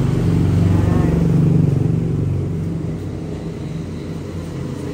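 A motor vehicle engine running close by, a steady low rumble that is loudest about a second and a half in and then eases off.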